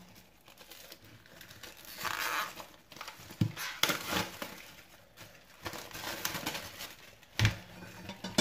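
Plastic cling film crinkling in several rustling bursts as it is peeled off a head of napa cabbage, then a single thump about seven and a half seconds in as the cabbage is set down on a plastic cutting board.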